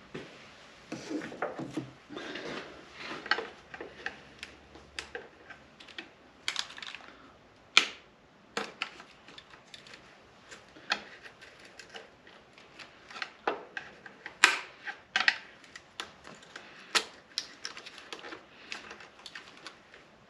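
Irregular clicking, tapping and scraping of a small hand tool and plastic parts as a throttle body and its wiring are worked loose from an engine, with a few sharper snaps standing out.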